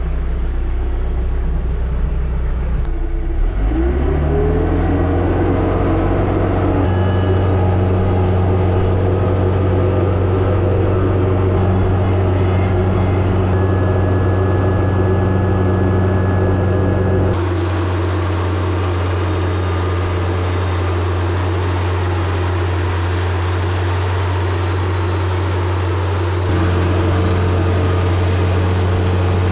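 TYM 474 tractor's diesel engine revving up about three to four seconds in, then running steadily at high revs. The sound changes abruptly about halfway through.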